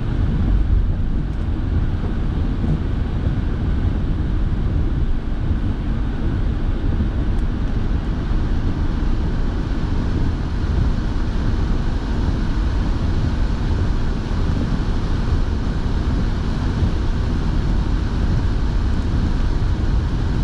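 Steady cabin noise of a car driving on wet roads: engine and tyre rumble with the heater fan blowing.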